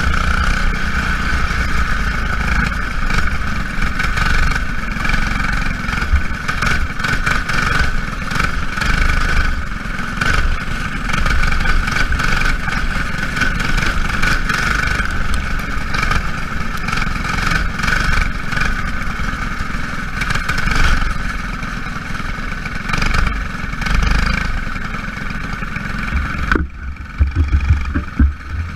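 Several Jr Lite race cars running hard in a feature race, their small engines at high revs in one continuous, wavering blend. Near the end the engine noise fades and a few low thumps are heard.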